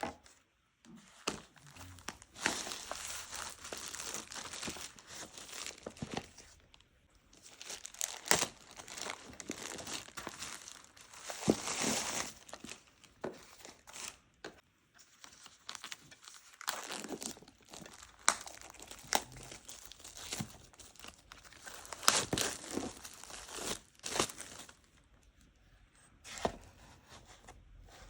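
Keyboard packaging being unwrapped by hand: stretches of crinkling and tearing, broken by sharp clicks and knocks as the box and its contents are handled.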